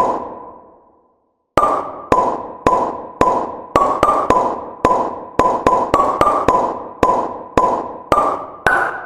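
A run of sharp, hollow pops, each with a short ringing tone that fades. After a brief dead-silent gap they come at roughly two a second, sometimes in quick pairs, and the tone steps higher near the end.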